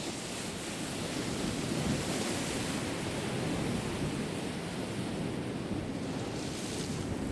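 Sea waves washing on the shore with wind, steady rushing noise that swells and eases, wind buffeting the microphone.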